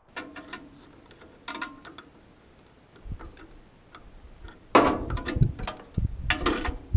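Metal hand tool clinking against the engine and wiring terminals of a Ford 8N tractor: a few light ticks, then two louder ringing clanks near the end, with dull knocks between them.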